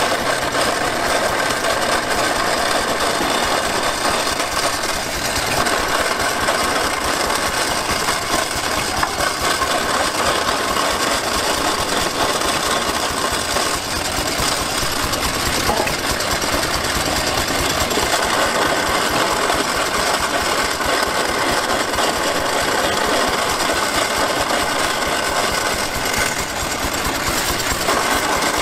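Small belt-driven cast-iron grist mill grinding shelled corn into meal, a steady rattling grind. The hit-and-miss gas engine that drives it by a flat belt runs underneath.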